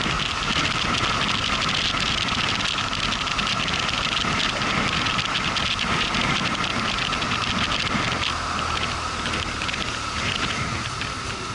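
Motorcycle riding along a road: steady wind rush on the microphone mixed with engine and road noise, easing off a little in the last few seconds.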